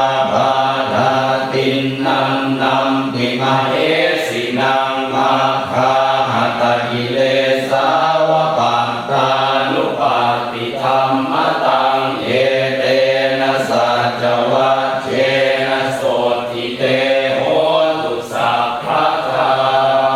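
Buddhist monks chanting Pali paritta verses in unison, a steady recitation on a few held pitches with no break.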